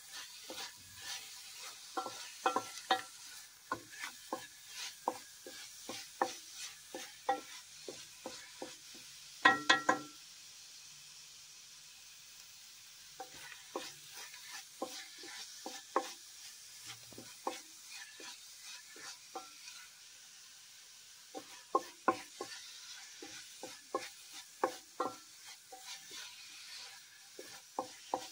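Wooden spatula stirring chopped spinach frying in oil in an aluminium pot, knocking and scraping against the pot again and again over a faint sizzle. A quick run of louder knocks comes about ten seconds in, and the stirring pauses briefly twice.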